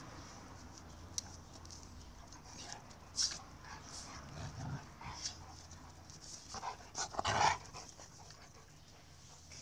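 Two dogs play-fighting, making a scatter of short, scuffling dog sounds, loudest about seven seconds in.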